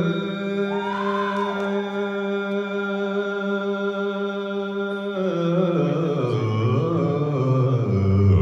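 A cappella vocal group holding a sustained chord. About five seconds in the voices start to move and a bass voice slides down to a low note.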